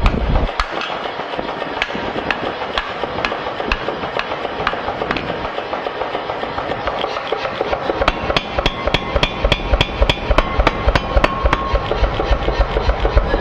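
Mechanical power hammer pounding a red-hot steel parang blank in fast, regular blows, about three a second, starting about eight seconds in. Before that there is steady forge-shop noise with a few scattered light clinks.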